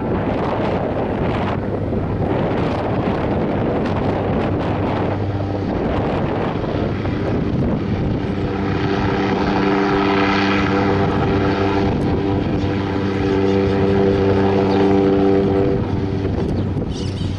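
Cessna Caravan skydiving plane's single turboprop engine and propeller running as it taxis: a steady rush with a low hum. About halfway through a steady whine of several pitched tones comes in, swells, and fades again near the end.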